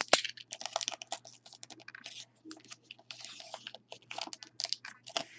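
Trading card pack wrappers crinkling and rustling, with cards being handled: a dense run of irregular small crackles and clicks.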